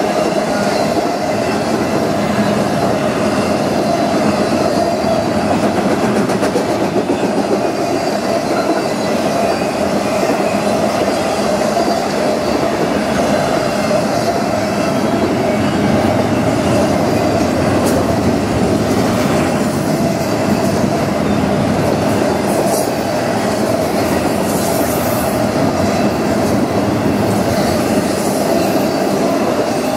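Intermodal freight train cars, double-stack container cars and trailer flatcars, rolling steadily past: a loud, even rumble and rattle of steel wheels on rail, with brief faint squeals now and then in the second half.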